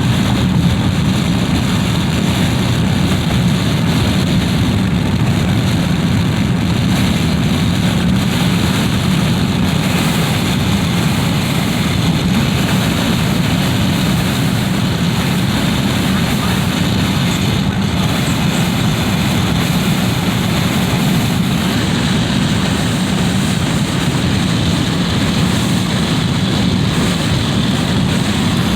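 Wind coming through a window: a steady, deep rushing noise with a lighter hiss above it, hardly changing.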